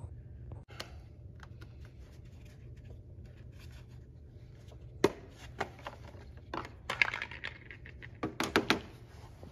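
Hands opening the air filter housing on a Kohler lawn mower engine and pulling out the filter: scattered plastic clicks and knocks, the loudest about five and seven seconds in and a quick run of them near the end, over a low steady hum.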